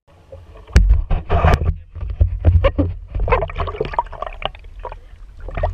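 Water splashing and sloshing against a plastic fishing kayak's hull, with irregular knocks and a steady low rumble.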